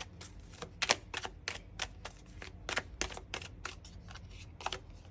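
Tarot cards being shuffled and handled: a run of light, irregular clicks and flicks, several a second.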